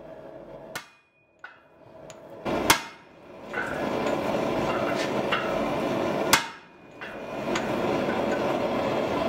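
A hand hammer striking a steel tool held on a glowing hot steel block on a swage block. The blows come irregularly, about seven in all, the loudest two at about a third and two-thirds of the way through. A steady noise runs under the blows for most of the time and drops out briefly after the second loud blow.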